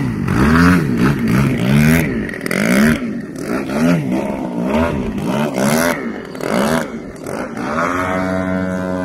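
Skywing 116" Extra NG's GP178 gas engine and propeller running hard in aerobatic flight. Its pitch swells and drops about once a second, then settles into a steady, slowly rising note near the end.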